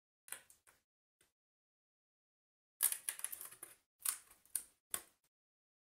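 Die-cut card pieces of a 3D paper puzzle being handled and pressed out of their sheet: crackling, rustling card noise in short bursts, the loudest a little under three seconds in, then a few single snaps.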